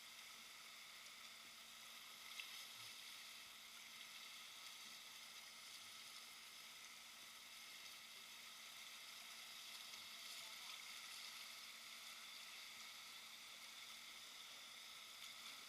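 Faint, steady rush of river water flowing over a shallow drop, heard as an even hiss.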